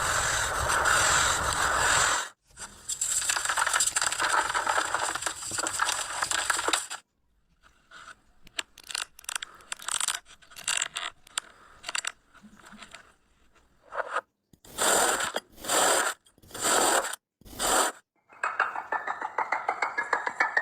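Scraping and crunching sounds that change every few seconds: steady dense scraping first, then scattered small clicks, then several separate short scraping strokes, and quick rhythmic scraping near the end.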